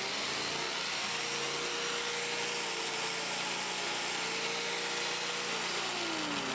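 Corded angle grinder running against the rusted steel edge of a pickup's fender wheel arch, grinding off rust. It makes a steady whine whose pitch sags briefly midway and falls near the end.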